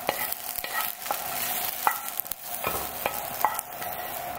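A spatula scraping the last of the stir-fried kelp and daylily out of a hot non-stick frying pan: a series of scrapes and knocks against the pan, each followed by a brief ring, over a faint sizzle of hot oil.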